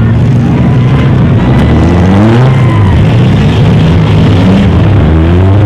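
Engines of stock front-wheel-drive demolition derby cars running loudly and revving as the cars accelerate. The pitch climbs at about two seconds in and again near the end.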